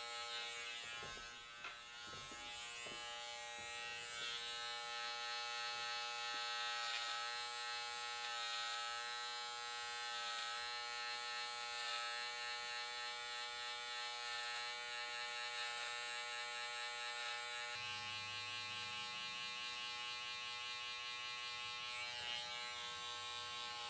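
Andis GTX-EXO cordless hair trimmer running with a steady electric hum as its blade cuts hair.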